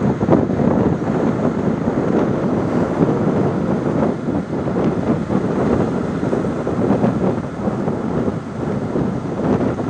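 Strong wind buffeting the microphone: a loud, steady, low rumbling noise.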